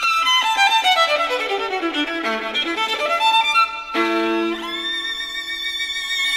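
Instrumental background music: quick cascading runs of notes falling in pitch, then climbing back up, then settling on a held chord about four seconds in.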